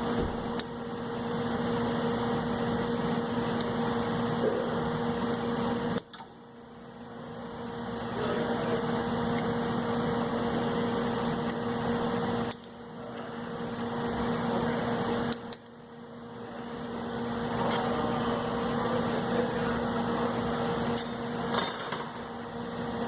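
Steady machine hum with a low tone. It cuts out abruptly about six seconds in, again near twelve and a half and fifteen and a half seconds, and swells back over a couple of seconds each time. A few light clicks come near the end.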